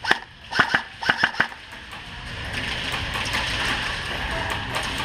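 Airsoft gunfire: about six sharp snaps in the first second and a half, some close together, followed by steady background noise.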